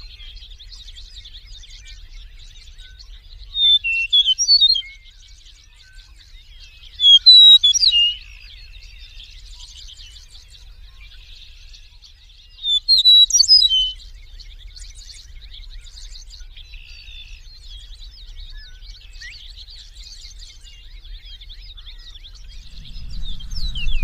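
Eastern meadowlark singing three loud songs of clear, slurred whistles a few seconds apart, over a steady background of faint twittering from other birds.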